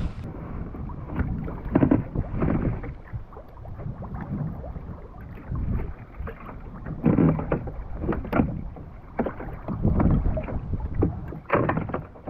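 Irregular gusts of wind on the microphone and water sloshing and slapping against a kayak's hull on a choppy sea.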